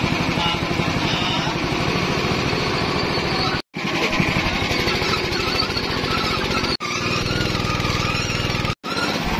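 A small engine running steadily with a fast, even pulse. The sound cuts out for a moment three times.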